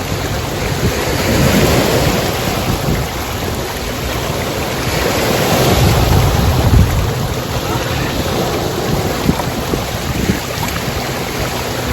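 Steady rush of water with wind buffeting the microphone, swelling louder twice.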